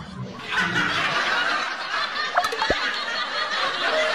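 A room full of people laughing together, a dense burst of group laughter that swells up about half a second in.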